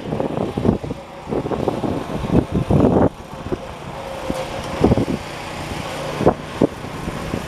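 Engine of a 1979 John Deere 214 garden tractor running as it is driven toward the listener, a steady hum that grows louder as it nears. The owner thinks this engine is worn and needs a rebuild. Irregular gusts of wind buffet the microphone through the first few seconds.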